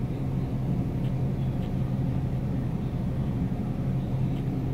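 Steady low hum of a supermarket's open refrigerated meat display case.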